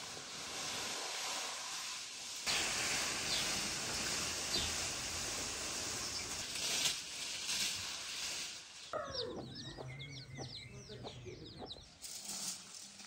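A steady hiss for several seconds. About nine seconds in it gives way to roughly three seconds of chickens clucking and small birds chirping.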